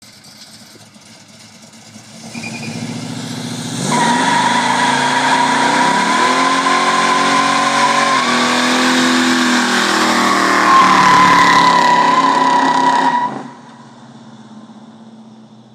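1968 Oldsmobile 442's 400 cubic-inch V8 revving hard through a burnout, the rear tyres spinning on the asphalt with a steady high squeal that starts about four seconds in and lasts about nine seconds while the engine note climbs. The squeal then cuts off and the engine sound drops away as the car pulls off.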